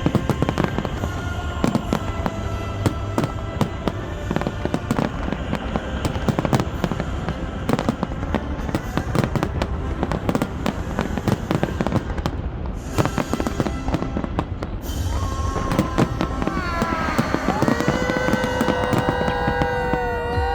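Fireworks display: a dense run of bangs and crackling over music with a heavy low bass. In the last few seconds, wavering, gliding whistle-like tones come in.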